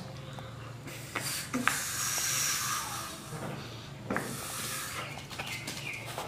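Breathy hiss of air being blown into a rubber balloon, in two long bursts, with a few short sharp clicks from handling the rubber.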